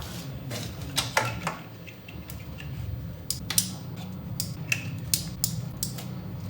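Irregular sharp clicks and metallic clinks of hand tools and engine parts being handled during reassembly, over a steady low hum.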